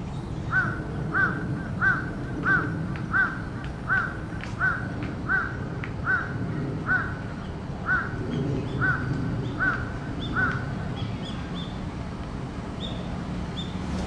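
A crow cawing about fourteen times in an even series, a little more than one caw a second, then falling silent; the uploader calls this kind of cawing an earthquake-warning call. A few short, higher chirps follow near the end.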